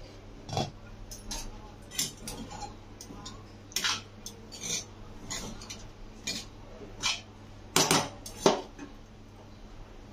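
Metal spoon stirring flattened rice in a steel kadhai, clinking and scraping against the pan at irregular intervals, with two louder knocks near the end.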